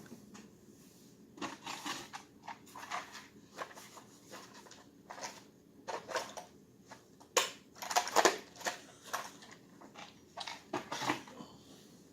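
Small metal tools and parts being handled: irregular clicks, scrapes and rattles as a pick is hunted for among them, with a louder bout of clatter about two-thirds of the way through.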